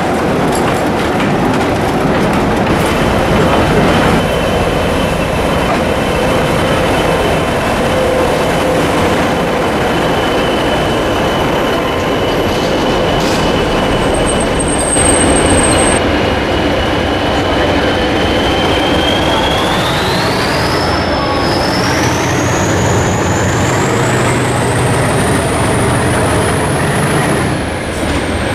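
Diesel locomotive engine running with a steady high turbocharger whine, which climbs sharply in pitch about two-thirds of the way through as the engine is opened up, over the engine's rumble.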